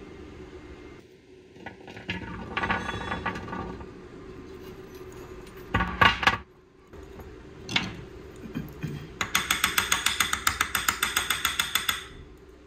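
Steel fishing hooks rattling and clinking into a small square steel canister, with a sharp clatter about six seconds in. Near the end comes a quick run of light hammer taps on the packed canister, about seven a second for about three seconds, settling the hooks for a canister Damascus billet.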